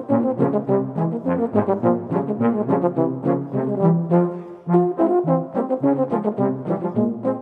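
Small brass band playing a lively tune: trumpets carry the melody over low tuba bass notes, with quick, regular note changes.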